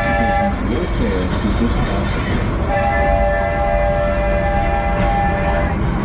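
The ride train's whistle sounding a chord of several steady notes: a blast that ends about half a second in, then a second long blast from just under three seconds in until near the end. Under it the train runs with a steady low rumble.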